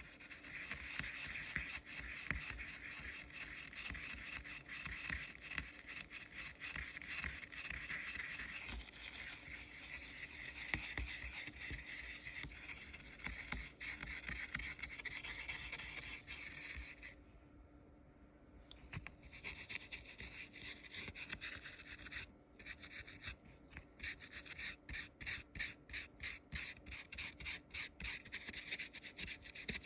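Gold foil being rubbed down onto a print: a steady dry rubbing that pauses briefly about two-thirds of the way through, then turns into quick back-and-forth strokes, a few per second.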